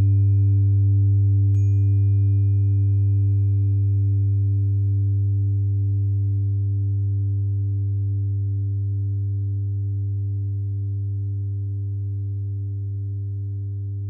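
A 396 Hz tuning fork, struck just before and again about one and a half seconds in, rings with a pure steady tone. A faint high overtone fades away over several seconds. Underneath runs a steady low drone of sustained tones from the binaural-beat track and singing bowl, the whole sound slowly getting quieter.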